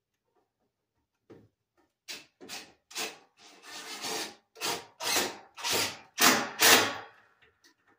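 About ten short rasping strokes of something rubbed against wood, irregular and getting louder toward the end.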